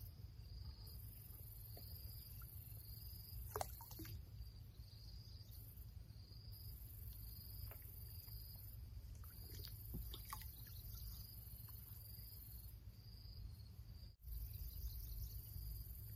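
Insects in the waterside grass buzzing and chirping with a regular pulse, over a steady low rumble, with a couple of faint knocks.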